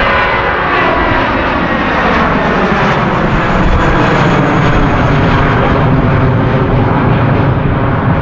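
Airbus A320-200 jet taking off close by at full thrust: loud engine noise whose whine falls in pitch over the first few seconds, giving way to a deep rumble.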